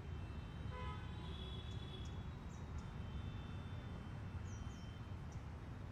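Outdoor ambience: a steady low rumble with a few short, high bird chirps scattered through it.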